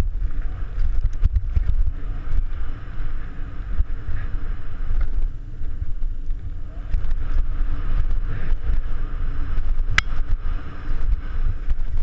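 Mountain bike descending a downhill trail, heard from a camera mounted on the rider or bike: wind buffeting the microphone as a steady low rumble, tyres rolling over dirt and wooden ramps, and frequent clicks and rattles from the bike, with one sharp knock about ten seconds in.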